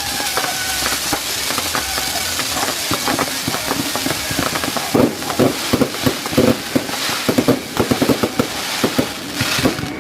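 Special-effects fireworks going off: a steady hissing spray for the first half, then rapid, dense crackling bangs from about five seconds in.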